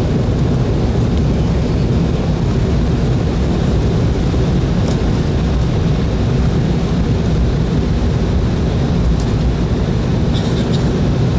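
Steady rumble and hum of an Embraer 190 airliner's twin turbofan engines, heard from inside the cabin as the jet taxis. A few faint ticks come near the end.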